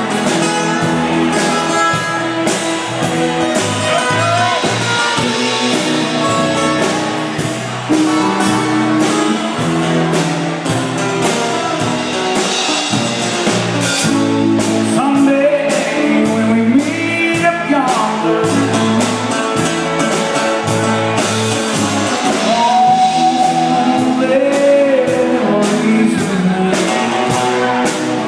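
Live band of acoustic and electric guitars, electric bass and drum kit playing a song's instrumental passage, with a lead line sliding and bending in pitch over the chords and cymbals.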